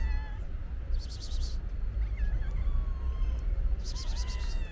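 Stray cats meowing several times, one call rising in pitch at the start, over a steady low rumble. Twice, about a second in and near the end, a brief high rasping crackle.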